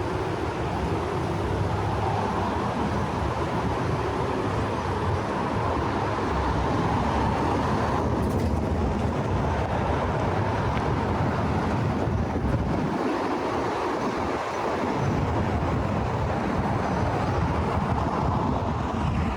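Steady city street traffic noise: vehicles running and passing, with a low rumble that eases off briefly about two-thirds of the way through.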